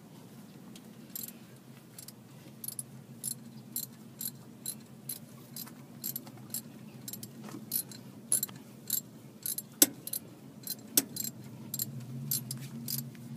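Socket ratchet clicking in short repeated strokes, about two a second, while a spark plug is worked with it, with two sharper metallic knocks about two-thirds of the way through.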